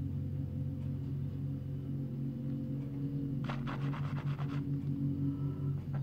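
Diesel engines of a small ride-on road roller and the plant behind it running with a steady low drone, heard through window glass. Just past halfway there is a short burst of rapid clattering, about eight knocks a second for around a second.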